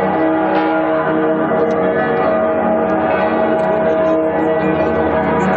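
Church bells pealing, several bells ringing together without a break.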